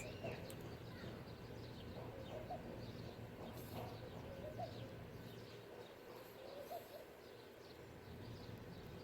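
Several short, low animal calls, one at a time, over faint steady background noise, with light scattered ticks.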